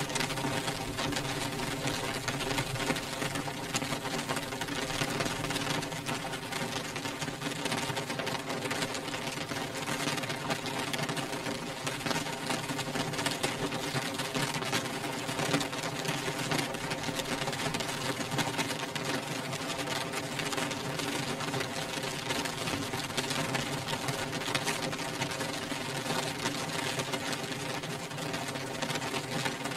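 Rain beating on a glass windowpane: a dense, steady patter of drops on the glass, over a faint steady hum.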